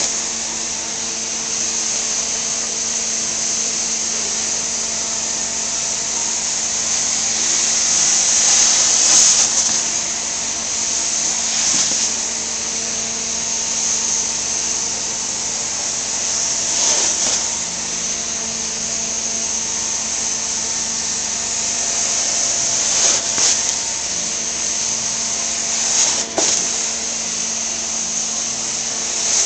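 Steam cleaner jetting steam from a floor wand onto carpet: a steady hiss over a constant machine hum, the hiss swelling several times as the wand is worked.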